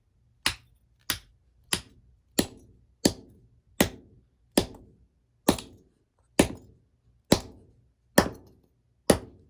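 A steady series of about a dozen hard, sharp blows on the base of a cheap LED light bulb as it is being smashed, each ringing briefly. The blows come a little less than a second apart and slow slightly as they go on.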